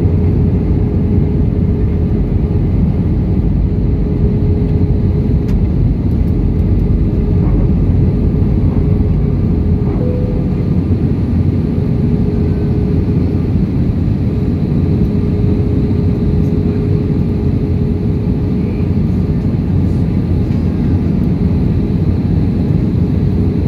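Steady cabin noise inside an Airbus A320 on approach to land: a low, even roar of the jet engines and airflow, with a steady mid-pitched hum running through it.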